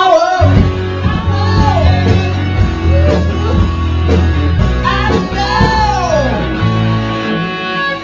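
Rock music with singing: a heavy bass part comes in about half a second in, under a voice that slides up and down.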